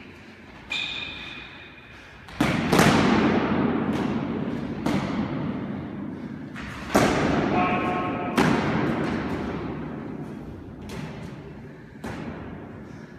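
Practice swords striking during sparring: about eight sharp hits spread over the span, each with a long echo off the walls of a racquetball court. Two short squeaks, likely shoes on the hardwood floor, come about a second in and about eight seconds in.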